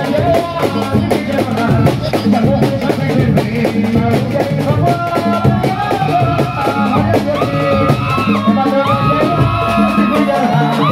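Loud, upbeat music with fast, dense drumming under a melody of held notes that step from pitch to pitch.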